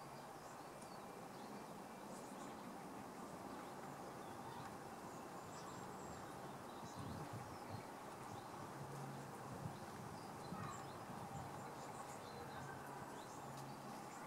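Faint outdoor ambience: a steady hiss with scattered tiny high ticks and a few brief high chirps, and a low hum that comes and goes.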